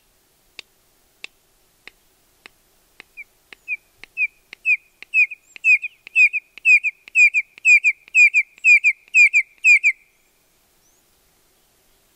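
Red-crested korhaan giving its song: a series of sharp ticking clicks that gradually speed up, then give way to a run of whistled notes, about two a second, growing louder before stopping about ten seconds in.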